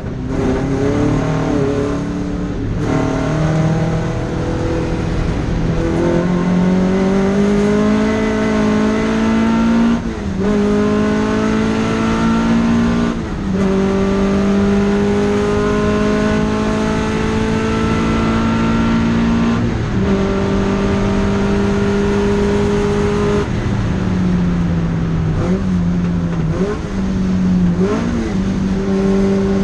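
Datsun Fairlady 2000 (SR311)'s two-litre four-cylinder engine pulling hard through the gears. The revs climb steadily and drop sharply at each of several upshifts. Near the end it comes off the power, with a couple of quick rev blips on the way down.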